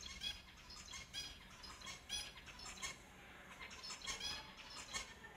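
Finches calling: a quick run of short chirps, about three or four a second, with several louder ones standing out.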